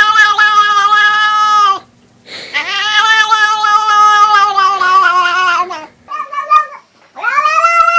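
A domestic cat yowling in long, drawn-out howls. There are two long yowls, the second lasting about three and a half seconds, then a short one, and another starts near the end.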